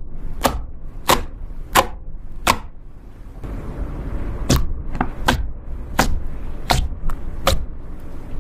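A series of sharp clicks or snaps, evenly spaced at about one every three quarters of a second: four, a pause of about two seconds, then five more.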